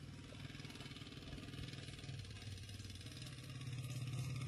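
Domestic cat purring close to the microphone: a steady, rapidly pulsing low rumble that grows a little louder near the end.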